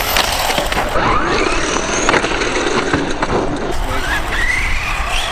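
JLB Cheetah RC truck's brushless electric motor whining, rising and falling in pitch as it is throttled on and off, over tyre noise on wet asphalt, with a sharp knock as the truck lands from a jump about two seconds in.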